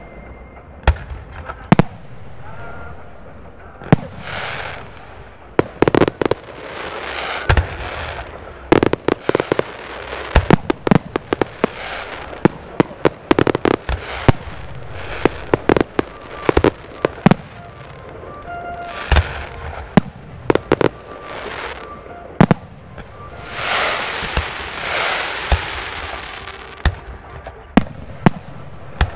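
Aerial firework shells bursting in quick, irregular succession: dozens of sharp bangs, broken by several longer hissing, crackling swells, the biggest near the end.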